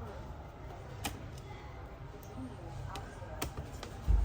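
A few sharp small clicks and taps from handling a laptop's plastic casing and tools while undoing screws, then a heavy low thump just before the end.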